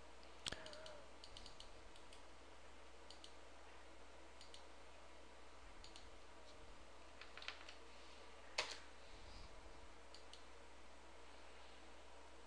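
Faint, scattered computer mouse and keyboard clicks, a few in quick succession near the start and one sharper click past the middle, over a low steady hum.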